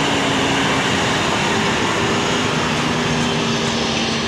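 Heavily loaded Hino FM8J truck's diesel engine running as the truck pulls slowly past, a steady drone whose pitch drops a little about halfway through.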